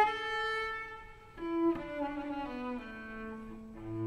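Classical background music: slow, sustained string notes changing every second or so.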